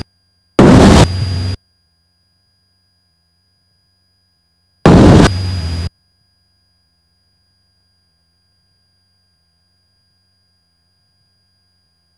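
Cockpit headset audio feed: two loud bursts of static-like noise, each about a second long and about four seconds apart, each starting loud, dropping lower and then cutting off abruptly, with near silence between.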